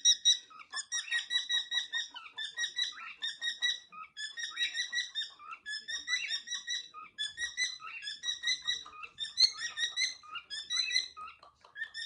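Cockatiels chirping in quick runs of short, high whistled notes, about four to six a second, mostly on one pitch.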